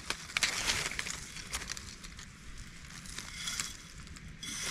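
Dry leaf litter and twigs crackling and rustling as they are disturbed, with scattered sharp crackles. It is busiest in the first two seconds, then fainter.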